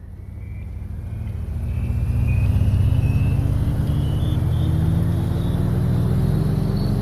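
Motor vehicle engine fading in and running, its pitch slowly rising as it speeds up, with a thin whine climbing alongside.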